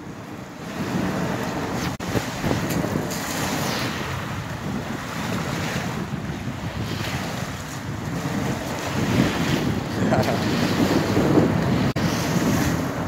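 Wind buffeting the microphone over small waves washing onto a pebbly shore. The sound drops out briefly twice.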